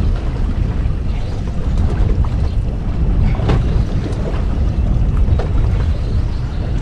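Wind buffeting the microphone on an open boat, a steady low rumble, with water lapping at the hull and a few faint light knocks.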